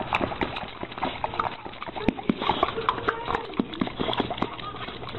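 Dog playing about energetically, with quick irregular clicks and short mouth noises.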